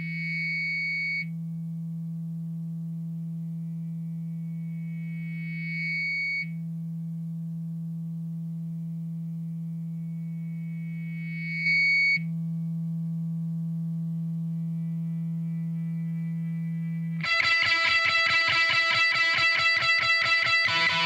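A sustained, droning electric guitar note with effects. A higher tone swells up over it and cuts off three times, about every six seconds. About 17 seconds in, loud distorted electric guitar comes crashing in.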